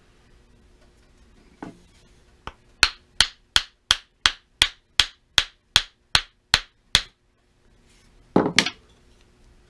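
Wooden mallet tapping a wooden handle down onto the steel tang of a brick jointer, seating it in its epoxy-filled hole: about a dozen sharp, even strikes, close to three a second. A heavier double knock follows near the end.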